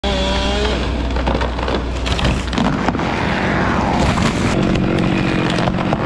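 Petrol chainsaw running hard while felling a tree, its pitch sliding down about three seconds in, with a few sharp cracks.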